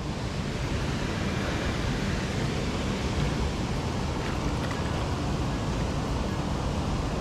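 Steady rushing noise of a shallow river flowing past, mixed with wind buffeting the microphone.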